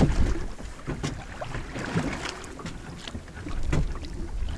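Wind buffeting the microphone and sea slapping against a small open boat, broken by scattered knocks and clicks, the loudest a knock at the very start.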